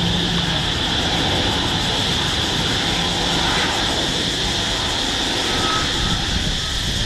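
Gulfstream V business jet's Rolls-Royce BR710 turbofan engines running with a steady, high-pitched whine over a rushing noise as the jet rolls out along the runway after touchdown.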